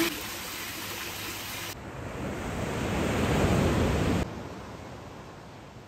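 Small waves washing up on a sandy beach, with wind on the microphone. The surf swells to its loudest about three and a half seconds in, then drops abruptly to a fainter wash.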